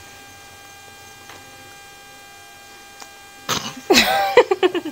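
Steady low electrical hum, then about three and a half seconds in a loud, choppy burst of a woman's laughter.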